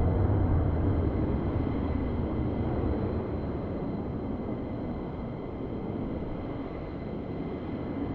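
Distant rumble of an F-35A Lightning II's single F135 turbofan engine as the jet flies high overhead. The rumble fades over the first few seconds, then holds steady.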